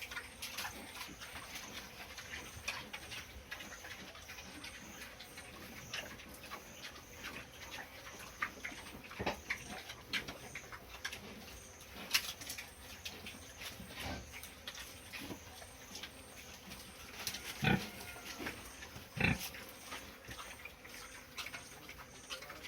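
Pigs in a pen grunting, among scattered knocks and shuffling, with two louder grunts in quick succession about three-quarters of the way through.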